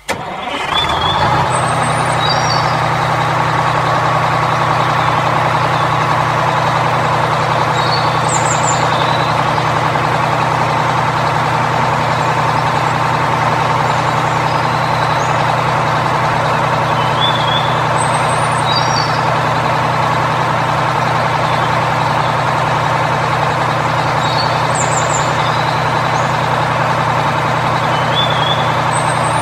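A truck engine running steadily as a constant low drone, with brief high chirps every several seconds.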